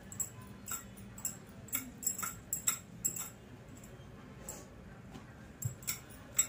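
Wooden rolling pin working a stuffed paratha on a wooden board: a run of light, irregular clicks and knocks several times a second, pausing about three seconds in and starting again near the end.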